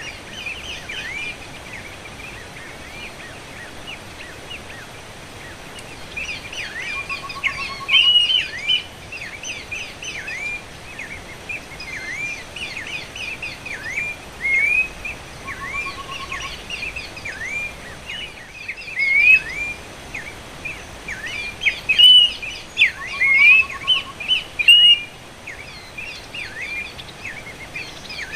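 Horsfield's babbler (pelanduk semak) scolding calls: a busy chatter of short, down-hooked chirps that comes in repeated bursts. A short, even, lower-pitched trill recurs about every eight seconds.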